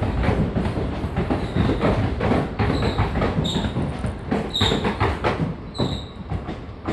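Passenger train coaches rolling past on the rails: rapid clatter of wheels over rail joints with a low rumble and several brief high wheel squeals. It fades near the end as the last coach pulls away.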